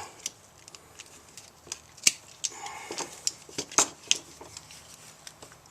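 Scattered light clicks and taps of a hand tool and an extension cord being handled for cutting, with a sharper snap about two seconds in and another near four seconds.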